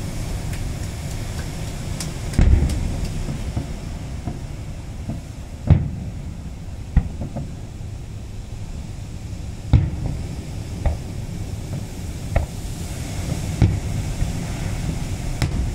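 Aerial fireworks shells bursting: sharp booms at irregular intervals, about eight or nine of them, the loudest about 2.5, 6 and 10 seconds in, over a steady low background noise.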